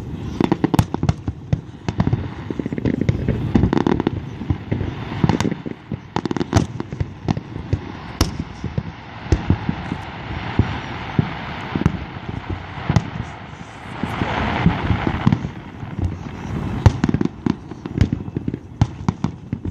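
Fireworks finale: a dense, rapid barrage of bangs and booms, with stretches of hissing crackle about halfway through and again later on.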